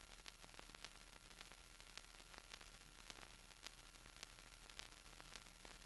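Near silence: faint steady hiss and low hum with scattered soft clicks.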